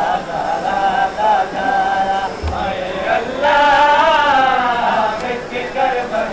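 Men's voices chanting a Shia mourning lament (noha), with a long wavering held note midway.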